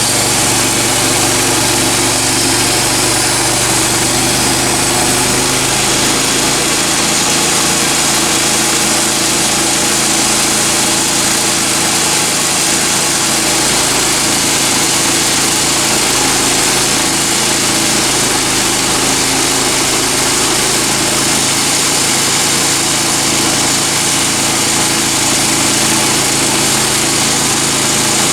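Small gas engine of a Woodland Mills HM126 portable bandsaw mill running steadily at high speed.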